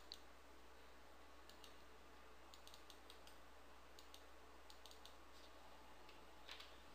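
Faint, scattered computer mouse clicks over a low steady hum, near silence otherwise.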